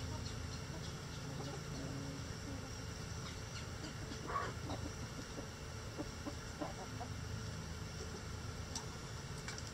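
Backyard hens clucking, with one louder cluck about four and a half seconds in and a few short ones after it, over a low steady background rumble.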